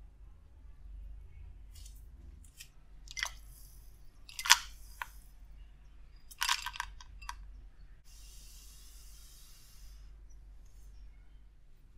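Kitchen utensils and containers being handled: a series of sharp knocks and clinks, the loudest about four and a half seconds in and a quick cluster about two seconds later, then about two seconds of soft rustling hiss.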